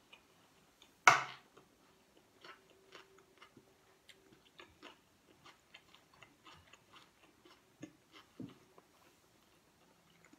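A person chewing a mouthful of rice and pork bistek, with many small wet mouth clicks and smacks and one sharp, much louder smack about a second in.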